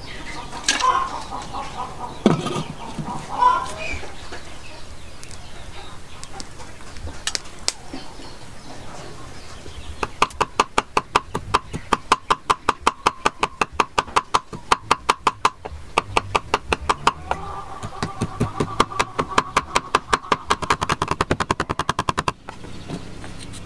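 Steel cleaver chopping fast and evenly on a round wooden chopping block, mincing snail meat, about five strokes a second with a faint metallic ring. It starts about ten seconds in, breaks off briefly and stops suddenly near the end.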